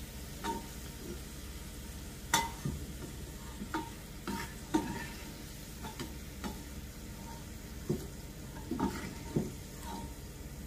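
Black spatula scraping and tapping in a non-stick frying pan as lightly browned onion pieces are scooped out of hot oil, with the oil sizzling underneath. The strokes come irregularly, about one every second.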